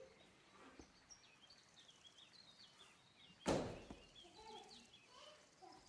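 Quick high bird-like chirps twittering, then a single loud thump about three and a half seconds in, followed by a few short lower calls.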